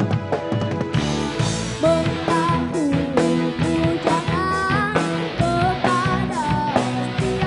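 Live rock band playing: a vocalist singing a melody into a microphone over electric bass, guitar and drum kit, with the full band coming in about a second in.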